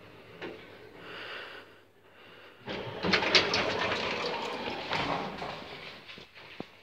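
Old Strommashina elevator's doors rattling and clattering open for about three seconds, with many small knocks, after a soft thump near the start and before a light click near the end.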